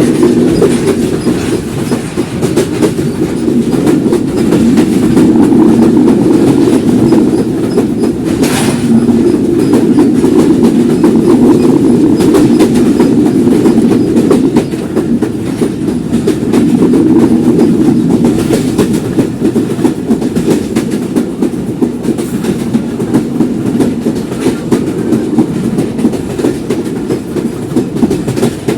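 Simanta Express passenger train running along the track, a steady loud rumble of wheels on rails with clickety-clack over the rail joints, and one short sharp click about eight seconds in.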